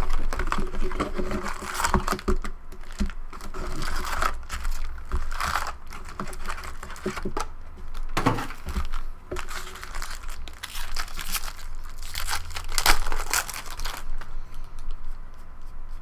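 Trading-card pack wrappers crinkling and being torn open, an irregular run of crackly rustles that is loudest about 13 seconds in.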